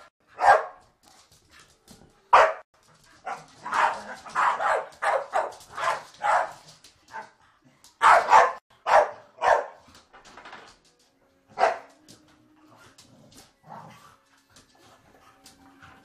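Staffordshire bull terriers barking while play fighting, in loud bursts of rapid barks that die away near the end.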